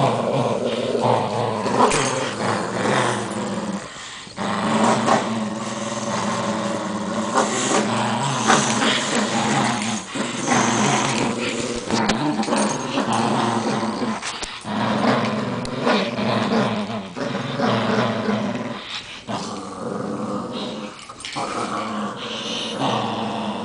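Two small dogs growling near-continuously as they tug on a plush toy in play, with a few short breaks.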